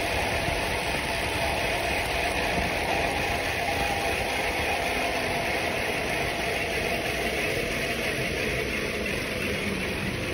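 Steady rushing noise of a fast ride on a Trek 4300 mountain bike down concrete garage ramps: wind on the microphone and the tyres rolling on the concrete.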